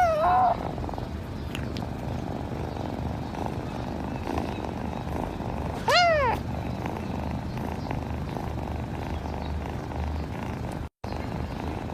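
Kitten meowing: one short, high call right at the start and another, rising then falling, about six seconds in, over a steady low purring.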